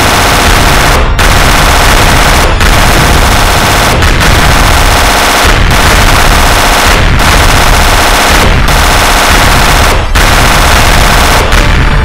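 Loud explosion-and-fire sound effect: a dense rush of noise that breaks off briefly about every one and a half seconds and starts again.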